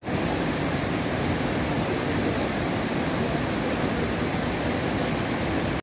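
Steady rushing of a waterfall, an even noise without any rhythm or tone, that starts and stops abruptly.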